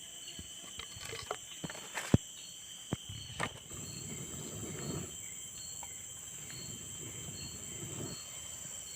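Insects trilling steadily, with a short repeating chirp roughly three times every two seconds. A few sharp clicks come in the first few seconds, and a low rustling noise joins about a third of the way in.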